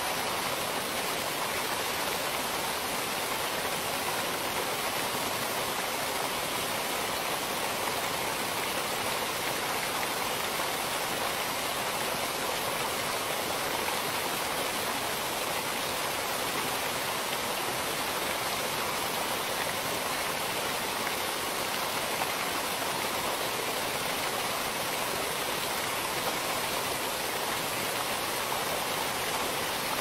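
Waterfall: water pouring over rock ledges and splashing into a pool, a steady, even rush that does not let up.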